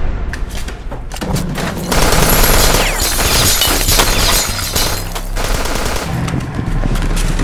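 Rapid gunfire: a fast run of shots, densest from about two seconds in, over a steady low drone.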